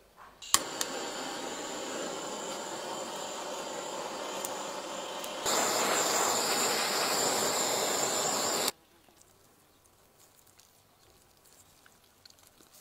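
A steady rushing hiss that starts abruptly, gets louder about five seconds in, and cuts off sharply about three seconds later.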